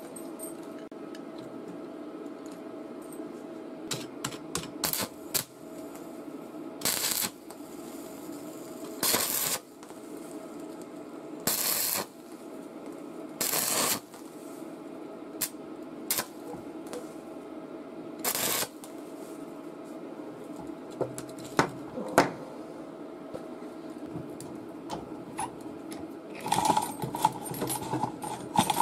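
Stick arc welding: the arc crackles in about five short bursts, each around half a second, as the steel swivel is tack-welded in the vise, over a steady low hum. Scattered clicks throughout, and a flurry of clicks and rattling near the end.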